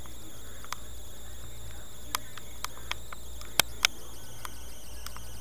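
Scattered sharp clicks and crackles of a stiff plastic blister pack on a cardboard toy card being handled, the two loudest close together a little past the middle, over a steady low hum.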